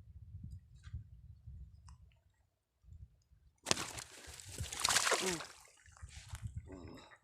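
A sudden burst of water splashing and sloshing, lasting about two seconds, starting about halfway through, over a low rumble.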